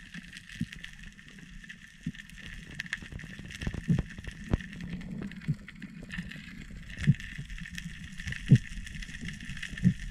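Underwater sound through a camera's waterproof housing: a steady crackle of scattered faint clicks, with irregular low thuds of water movement every second or two, a few of them louder in the second half.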